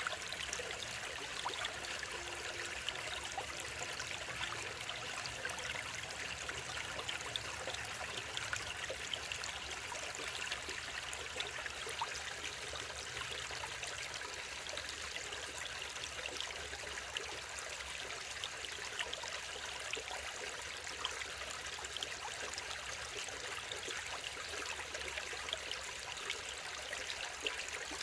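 Mountain stream water rushing and babbling steadily over rocks, with many small splashes and no let-up.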